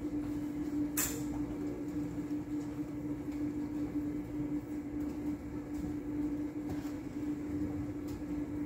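Steady mechanical hum holding one constant tone, with a single sharp click about a second in.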